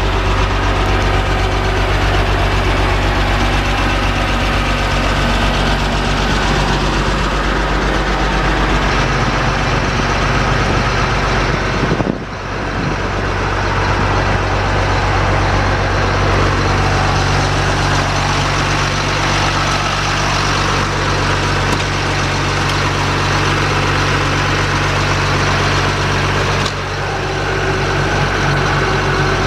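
2006 GMC C7500 aerial truck's engine running steadily, with a brief drop in level about twelve seconds in and another near the end.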